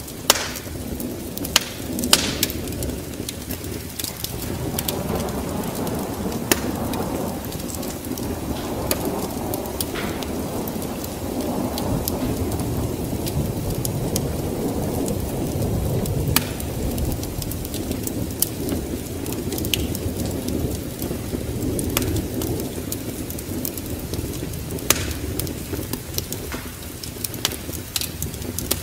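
Wood fire crackling with scattered sharp pops, over steady rain and a low storm rumble of thunder that swells a few seconds in and eases near the end.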